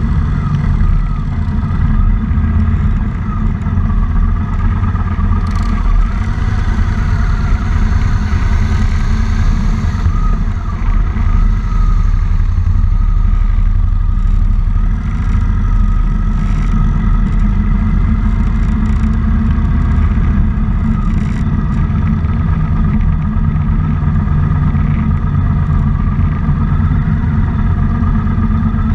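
Motorcycle engines running steadily at a slow cruising pace, heard from a bike on the move.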